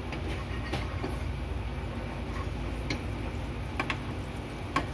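Wooden spatula stirring melting butter in a nonstick frying pan, knocking against the pan in a few sharp clicks over a steady low hum.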